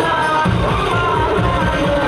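Music with a bass beat, playing loudly without a break.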